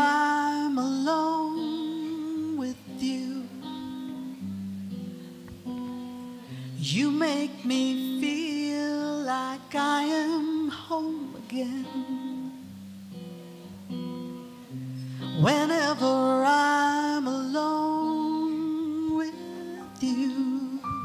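A woman singing a slow love song live into a microphone, in phrases with held, wavering notes, over a soft sustained instrumental accompaniment.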